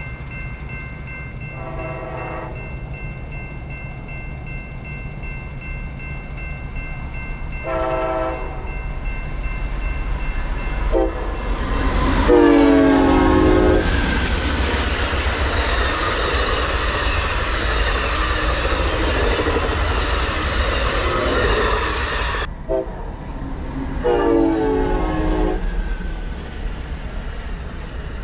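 Diesel locomotive horn sounding a grade-crossing pattern: two long blasts, a short one, then a longer, louder one as the train arrives, its pitch bending as it passes. This gives way to the loud rush and rumble of the passing train, and another horn blast near the end.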